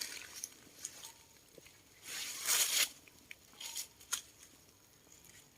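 Faint rustling and crackling with scattered light clicks, and a longer, louder rustle about two seconds in.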